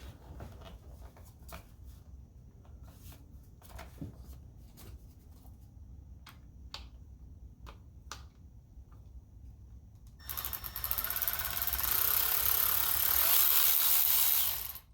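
Scattered light clicks and taps of tools and plastic trim for about ten seconds, then a small cordless power driver runs steadily for about four and a half seconds and stops abruptly, backing out a Torx screw that holds the turn signal switch.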